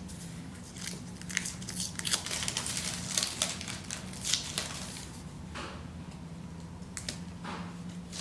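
Sticky tape being peeled off baking paper on a foil cake board: short, irregular ripping and crinkling strokes, with the paper rustling between them.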